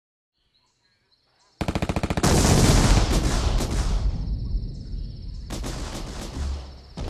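Gunfire starting suddenly about one and a half seconds in: a rapid machine-gun burst, then a loud, heavy volley of shots and blasts that slowly dies away, with another burst of fire near the end.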